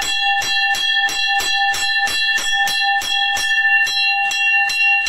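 A temple bell rung rapidly and evenly, about three strikes a second, its ring sustained between strikes.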